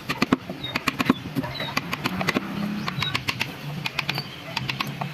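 Hand wood-carving tools cutting and tapping into wood: an irregular run of sharp clicks and taps, several a second, with a few short high chirps in between.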